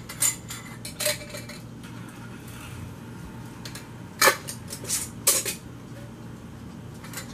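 Pint-and-a-half glass canning jars clinking and knocking as metal lids and screw bands are fitted finger tight and the jars are handled on the counter. About six separate sharp clinks, the loudest about four seconds in.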